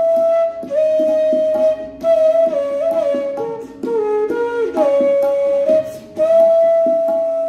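Bansuri (bamboo transverse flute) playing a melody in Raag Kaushik Dhwani: long held notes joined by slides, stepping down to lower notes around the middle and climbing back to a held high note near the end, with short breath breaks. A steady low drone sounds underneath.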